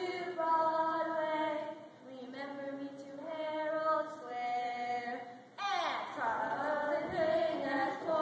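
Voices singing a slow melody in long held notes, choir-like. About two-thirds of the way in, several voices slide in pitch together.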